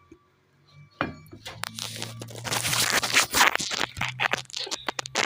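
Drum brake parts being handled during reassembly: a quick run of sharp clicks and scrapes starting about a second in, with a denser scraping rustle in the middle.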